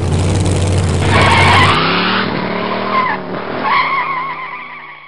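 Car sound effect: a loud engine rumble, then from about a second in tyres squealing in a wavering squeal over the running engine, fading away near the end.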